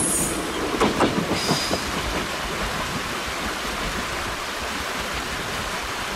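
Echigo Tokimeki Railway 413/455-series electric train rolling over the rails as it leaves the station: a few wheel clacks and a brief high wheel squeal in the first two seconds, then steady rolling noise slowly easing off.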